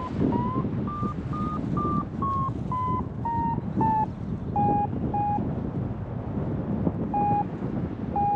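Paraglider variometer beeping over wind rushing on the microphone: short beeps, about two a second, rise in pitch over the first two seconds, then fall and thin out to a few spaced beeps after about five seconds. This is the vario's climb tone, signalling lift that strengthens and then weakens in a thermal.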